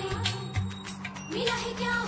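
Instrumental passage of a Hindi film song, with a steady drum beat and no singing.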